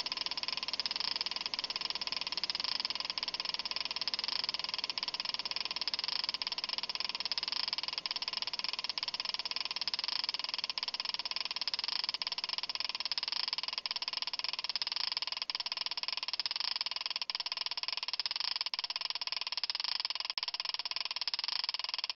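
A steady, even buzzing drone, strongest in the upper middle range, with no change or rhythm, which stops abruptly at the very end.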